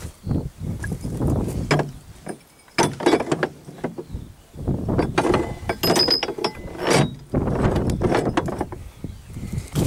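Irregular metallic clunks, knocks and rattling from a tractor's steel hitch linkage, over a low rumble.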